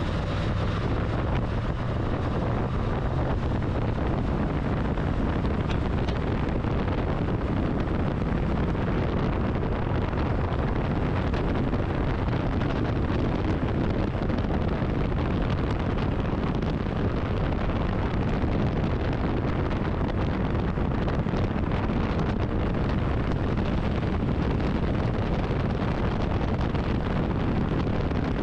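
1967 Pontiac GTO's 400 V8 running at a steady cruise, its exhaust heard from a camera mounted low on the car's side, mixed with heavy wind buffeting on the microphone.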